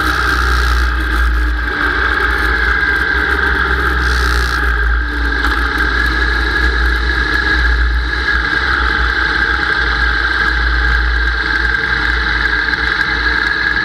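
Sport bike engine running at low revs as the bike rolls slowly back into the pits, heard through a dash-mounted camera with a low wind rumble. The sound stays steady, with no clear rises in revs.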